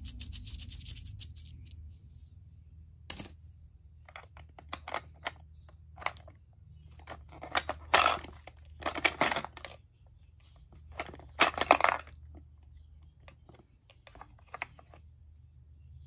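A quarter clinks and scrapes against the coin slot of a Dubble Bubble gumball machine. Then the crank is turned in several bursts of clicking and rattling that release a gumball into the chute.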